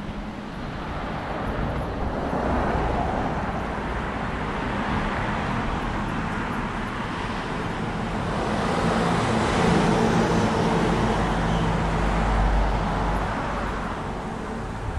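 Road traffic going past: a wash of vehicle noise that swells, is loudest with a low rumble about two-thirds through, and fades near the end.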